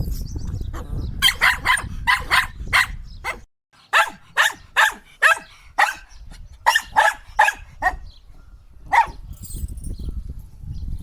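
Shetland sheepdog (Sheltie) barking in quick runs of sharp, high barks, about three a second, with short pauses between the runs. A single last bark comes about nine seconds in.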